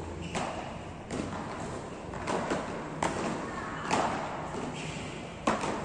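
Beach tennis paddles hitting the ball in a rally: sharp hits roughly once a second, the loudest near the end, ringing slightly in a large hall.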